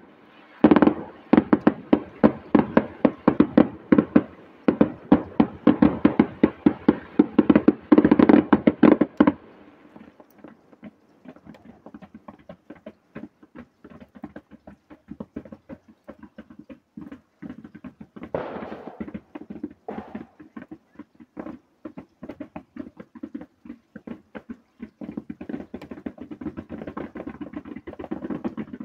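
Fireworks display: a rapid volley of loud firework bangs, many a second, for about the first nine seconds. The volley then drops to a softer, steady run of quick small reports, with a louder burst about eighteen seconds in.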